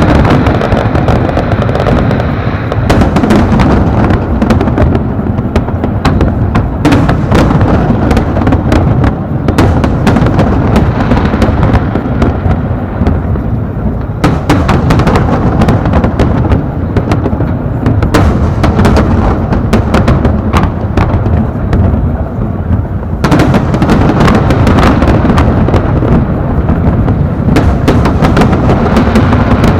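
Aerial fireworks display: a dense, continuous barrage of shell bursts, bangs and crackling, with booming low rumble and echo between the explosions.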